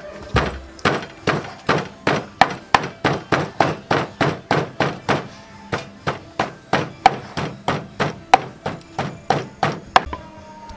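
Wooden pestle pounding chili in a wooden mortar: a steady run of thunking strikes, about three a second, that stops near the end.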